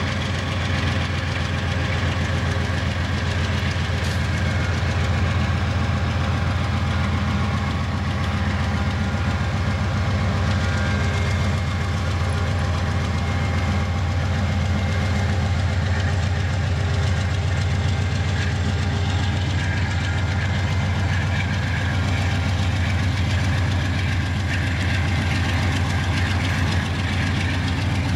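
Diesel railway locomotive engine running steadily, a low even engine note that holds the same pitch and level throughout.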